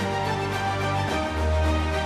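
Background music: sustained instrumental notes over a deep bass that shifts to a new note about a second in.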